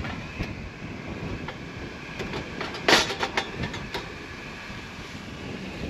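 Sheet-metal lid of a Skotti portable gas grill being lowered and closed: a few light metallic clicks, then a loud clang with a short rattle about three seconds in.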